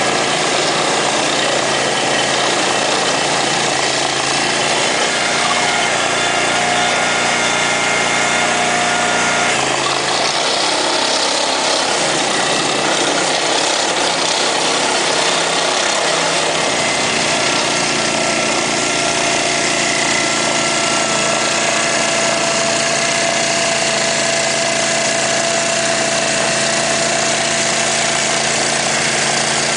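Engine of a ditch-digging machine running steadily; about ten seconds in its note changes for some six seconds, then settles back to the earlier steady running.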